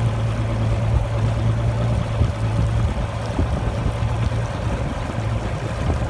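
Mercury 175 outboard motor running steadily with a low, even hum that dips briefly about three seconds in.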